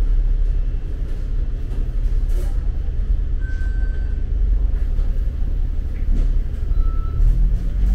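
Low, steady rumble of road traffic, with a vehicle engine growing louder and rising in pitch near the end.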